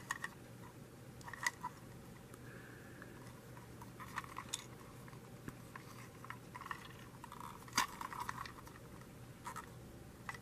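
Faint, scattered clicks and small rattles of a plastic toy train engine being handled and turned over, with a steady low hum behind.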